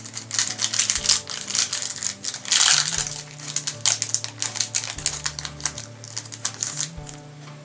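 Trading cards handled and flicked one after another, a rapid run of light snaps and clicks with a louder rustle about two and a half seconds in. Background music with a low bass line runs underneath.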